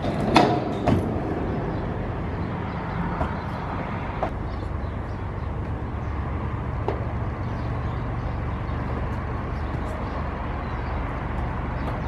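Two sharp knocks on steel, about half a second apart near the start, from climbing the rusty steel frame, with fainter knocks later on, over a steady low rumble.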